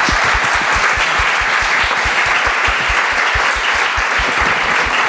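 Audience applauding steadily, with close hand claps near the microphone.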